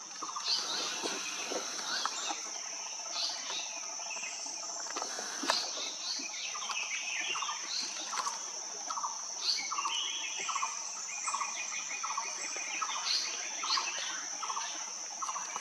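Forest ambience: a steady high-pitched insect drone, with many scattered bird chirps and calls. From about halfway through, one bird repeats a short low note roughly one and a half times a second.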